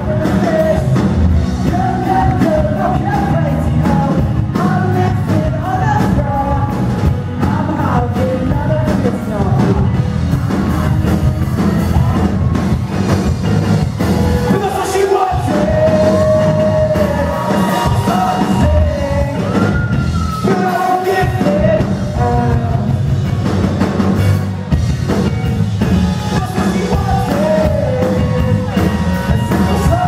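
A live song: a singer sings into a microphone over a strummed acoustic guitar, amplified through the venue's PA. The strumming drops out briefly twice, about halfway through and again a few seconds later.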